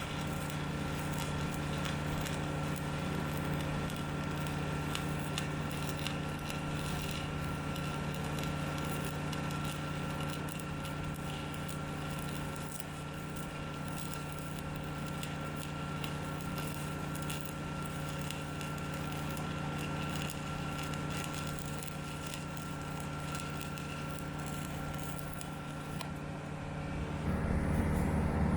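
An engine running steadily with a low drone, with scratchy crackling and clicks over it. Near the end a louder, deeper engine sound comes in.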